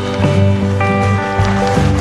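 Background music: held instrumental notes over a bass line that changes note every half second or so.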